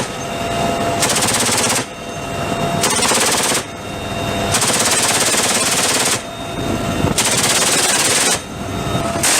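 M134 minigun firing in four short bursts, each a continuous high-rate buzz of shots, the third burst the longest. A steadier, quieter noise continues between the bursts.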